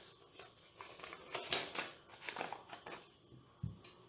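Folded paper slip being unfolded by hand: a string of irregular crinkles and crackles, loudest about a second and a half in, with a soft bump near the end.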